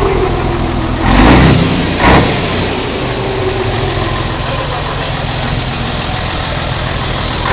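Scania 112's turbocharged six-cylinder diesel running at idle, blipped twice in quick succession about one and two seconds in. Afterwards a faint falling whistle comes from the turbo, which is fitted with an aftermarket 'comb' (pente) insert so that it sings.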